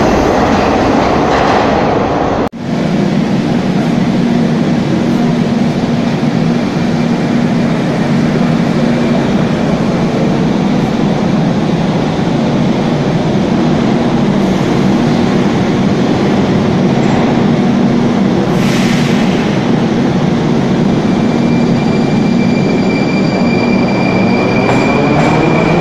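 Moscow metro train running loudly and steadily, with a brief break about two and a half seconds in. Near the end a rising whine comes in as the train picks up speed.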